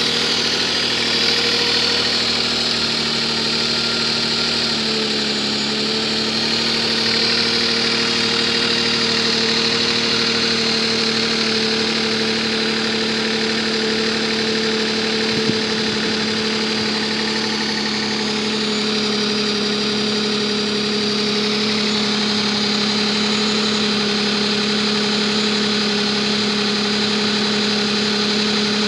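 Nissan Maxima's 3.5-litre V6 idling steadily just after a start, the run meant to show its excessive lifter noise. The idle note shifts slightly about five seconds in, then holds steady.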